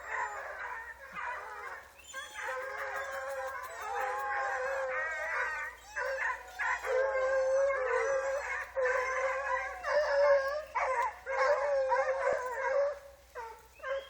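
Several hunting dogs howling and baying together: long, overlapping howls at different pitches, breaking into shorter calls near the end.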